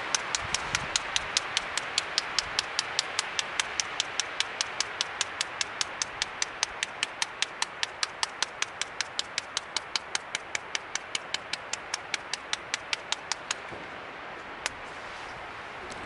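Spice shaker of Herbes de Provence shaken rapidly, a regular clicking at about five a second that stops near the end, over a steady hiss.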